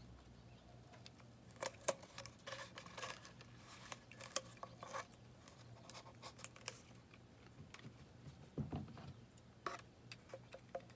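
Double-sided tape being pulled off its roll and pressed around a cardboard paper-towel tube: scattered small ticks, crackles and scratchy rustles of tape and cardboard handling.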